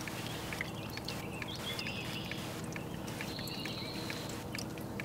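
Faint outdoor ambience: scattered short clicks and brief high chirps, with one high note held for about a second past the middle, over a steady low hum.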